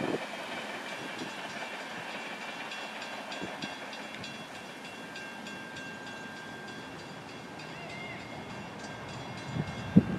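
Freight train cars rolling steadily past, with light clicking of wheels over the rails and a faint thin squeal. A few loud knocks come near the end.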